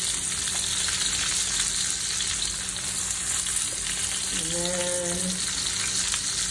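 Bone-in ribeye steak searing in a cast iron pan in hot oil and foaming butter, with garlic and thyme: a steady, dense sizzle that holds level throughout.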